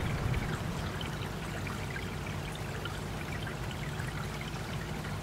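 Running water of a small stream, a steady trickling rush.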